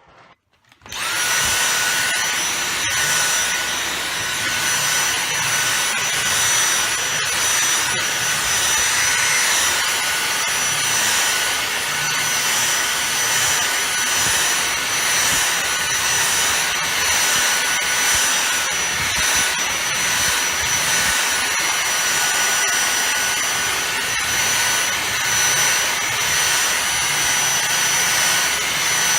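Dyson V6 Fluffy cordless vacuum switched on about a second in, its motor spinning up in a moment to a steady high whine over the rush of air, then running at constant speed.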